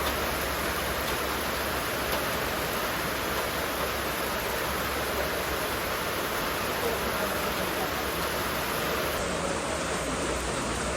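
Steady rain falling, an even hiss with no break or rhythm.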